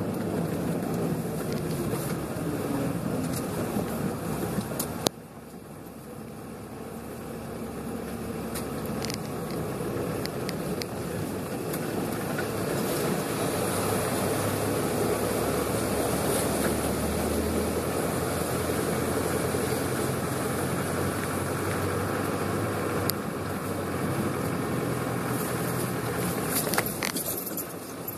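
Series III Land Rover heard from inside the cab, its engine and drivetrain running as it wades through a half-metre-deep flooded ford, with water washing and spraying around the vehicle. There is a sharp click about five seconds in, and the level drops abruptly there, then builds back up.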